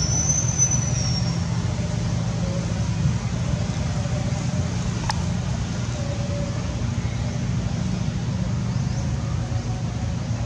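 A steady low motor rumble, like an engine running nearby. It carries a brief high whistle right at the start and a single sharp click about five seconds in.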